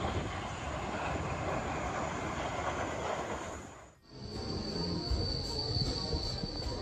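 Steady rushing noise of jet aircraft with wind on the microphone, fading out about four seconds in. Background music with a steady beat follows.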